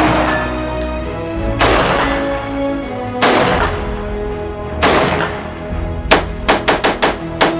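AR-15 rifle shots through a ported muzzle brake over background music: single shots about a second and a half apart, each with a ringing tail, then a quick string of about seven shots near the end.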